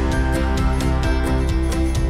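Background music with a steady beat and guitar.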